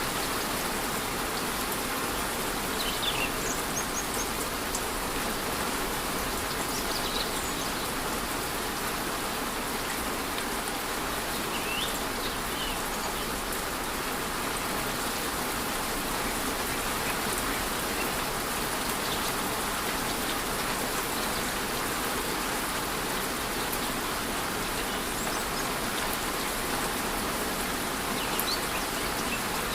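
Steady rush of a waterfall with light rain falling in a rainforest, and a few brief bird chirps scattered through it.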